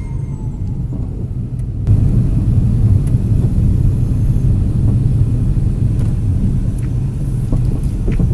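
A car driving, with a steady low rumble of road and engine noise that gets louder about two seconds in.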